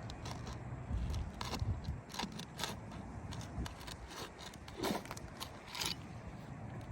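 Roofing snake scraping and prying under asphalt shingles, breaking their adhesive seal strips in a series of short irregular clicks and crackles. The shingles and their seal strips are stiff and brittle with age.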